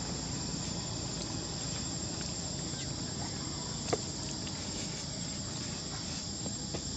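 Steady high-pitched drone of an insect chorus, with one sharp click about four seconds in.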